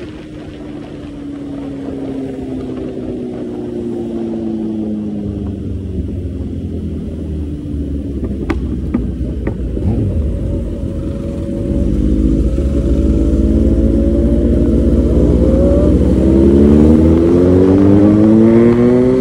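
Motorcycle engine under way, with low wind rumble on the microphone: its pitch sinks as the bike eases off, then climbs steadily and grows louder as it accelerates in the second half. Three short clicks sound near the middle.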